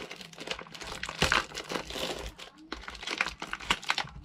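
Thin plastic card wrapper crinkling and tearing as it is peeled open by hand, in irregular crackles.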